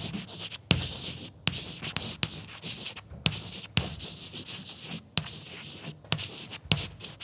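Chalk writing on a blackboard: a run of short scratchy strokes with brief gaps between them, several starting with a sharp tap of the chalk.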